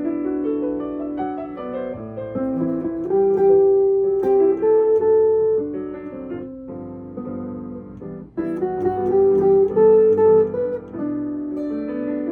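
Instrumental music from a duet of a non-piano instrument with piano, playing melody notes over chords. The music breaks off briefly about eight seconds in, then resumes.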